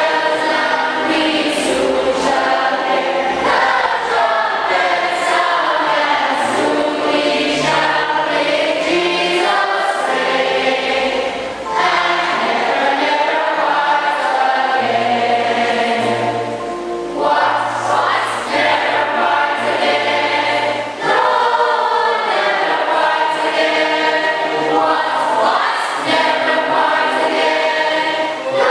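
A group of voices singing a hymn together in harmony, holding long notes, over low held bass notes.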